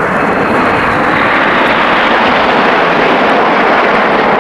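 Jet roar from a nine-ship formation of Red Arrows BAE Hawk T1 trainers flying overhead, each with a single Adour turbofan. It swells a little in the first second, then holds steady and loud.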